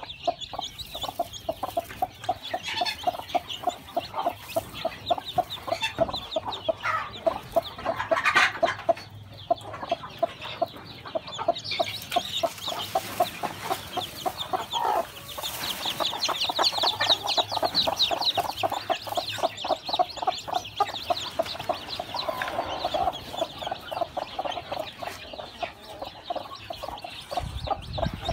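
Broody hen clucking in a rapid, steady run of low clucks while sitting on her nest, with newly hatched chicks peeping high and quickly over it, most busily in the second half.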